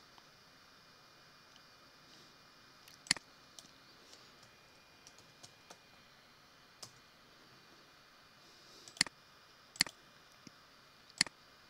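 Computer mouse clicking: four sharp single clicks, one about three seconds in and three close together near the end, with a few faint lighter ticks in between.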